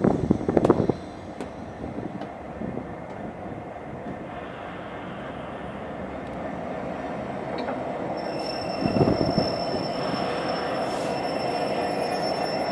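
Slow-moving train of Class 92 electric locomotives rolling along the platform, pushed from behind by a Class 66 diesel locomotive. The running noise grows steadily louder as the diesel end approaches, and high-pitched wheel squeal sets in about eight seconds in.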